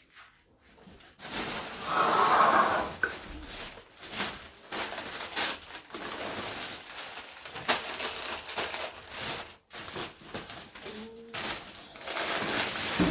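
Plastic grocery bags and packaging rustling and crinkling as groceries are handled and unpacked, in irregular bursts, loudest about two seconds in.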